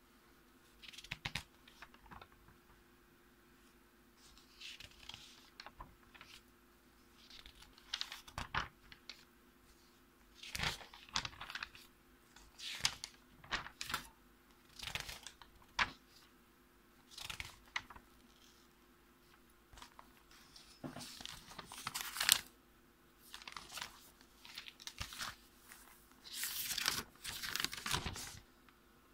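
Paper pages of a spiral school notebook being turned one after another: a run of short rustles and flaps, one every second or so, the loudest a little past the middle.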